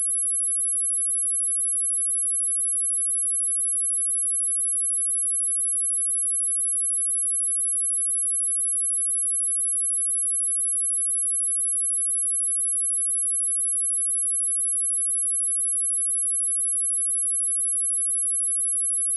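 Steady, continuous high-pitched sine-wave test tone at 10806 Hz, a single pure tone holding one pitch and level.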